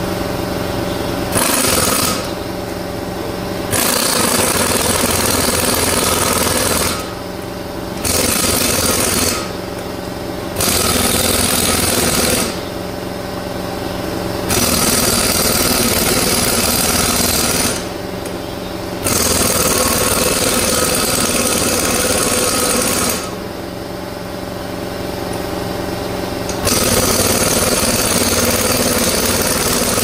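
Pneumatic air hammer rattling against a John Deere 2510 rear wheel hub to drive out its stuck hub wedge, in about seven bursts of a few seconds each with short pauses between. A steady machine hum runs underneath.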